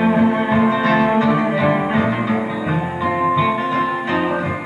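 Live band music with no singing: acoustic guitar playing under an electric lead guitar that holds long, sustained notes.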